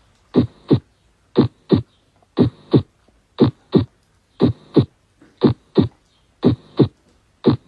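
Heartbeat recording: paired lub-dub heart sounds in a steady rhythm of about one beat a second.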